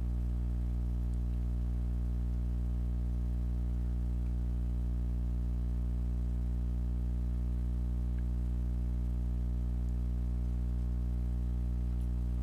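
A steady, low-pitched hum with a stack of overtones, unchanging throughout.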